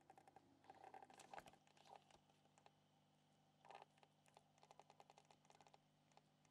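Near silence: faint room tone with a steady low hum and light scattered clicks and quick runs of ticks.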